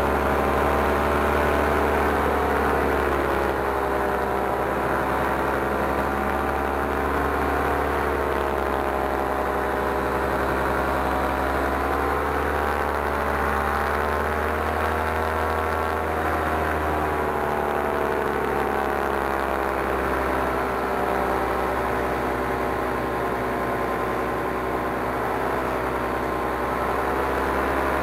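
Paramotor engine and propeller running steadily in flight, the engine's pitch drifting slowly up and down as the throttle changes.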